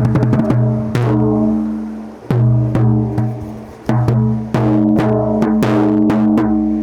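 Music with drum hits over deep, held bass notes.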